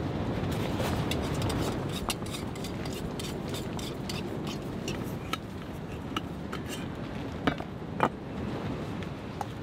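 Small metal clicks and light knocks as a gas canister is handled and hooked up to a small wire-legged canister stove on a camp table, with two sharper knocks near the end as a cookpot is set down. Under it, a steady low rush of strong wind on the tent.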